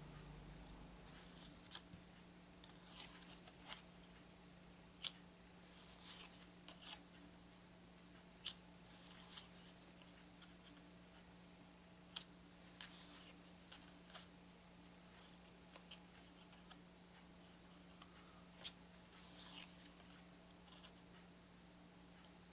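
Faint crisp rustles and clicks of cardboard game cards being slid off a stack and laid down one at a time, every second or two, over a steady low hum.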